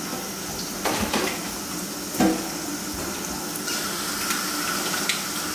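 A wet dish cloth being scrubbed with dish soap under a low stream of tap water in a stainless steel kitchen sink, over a steady hiss, with a couple of knocks against the sink about a second in and just after two seconds.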